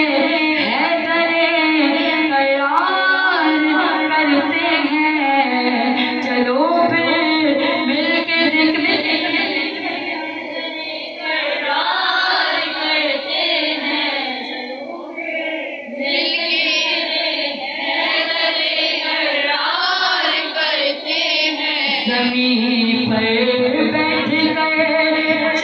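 A woman singing a devotional Urdu song into a microphone, a solo voice moving through wavering held notes and melodic glides.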